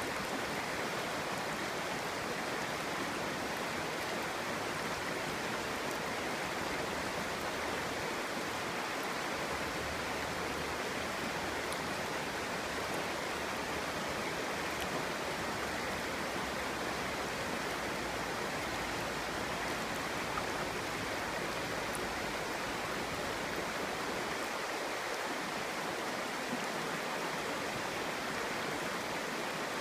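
Clear mountain stream babbling steadily over rocks, an even rushing of water.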